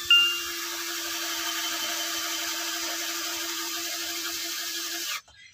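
Electric hand drill driving a screw into a wooden board; the motor runs at a steady pitch for about five seconds and then stops abruptly.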